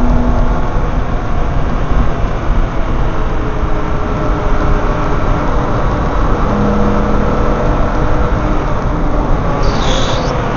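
Loud wind and road rush over a camera taped low on a BMW M3's number plate at track speed, with the engine note faint underneath, its pitch gliding slowly and falling near the end. A brief high-pitched sound comes near the end.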